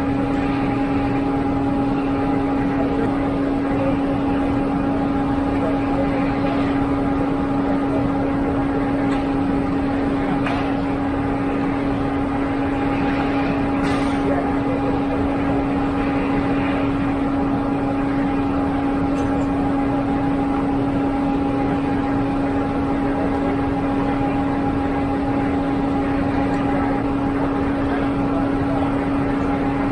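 Concrete pump truck's engine running at a steady speed: a constant drone with a strong low hum that does not change.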